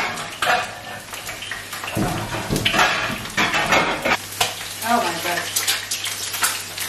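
Food sizzling in oil in frying pans, with repeated clatter of a spatula and utensils against the pans and plates.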